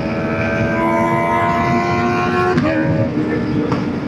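Inline-four sportbike engines held at steady high revs, the pitch stepping down slightly about two and a half seconds in, over a rush of wind and road noise.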